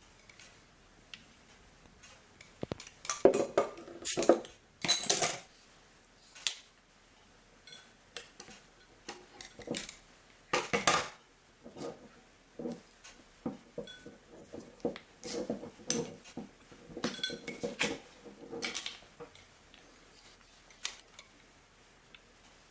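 Metal cutlery clinking and scraping against a plate in irregular bursts of clicks and knocks, loudest a few seconds in and again about ten seconds in.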